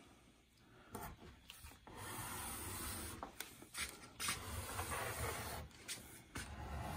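Logan handheld mat cutter drawn along an aluminum straightedge, its blade slicing through thick mat board: a steady scraping rub starting about two seconds in, with a few light clicks along the way.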